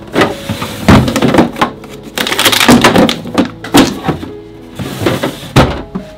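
Plastic food storage containers knocking and scraping against refrigerator shelves as they are pulled out, a quick run of clunks and clatters with a few louder thuds. Soft piano music plays underneath.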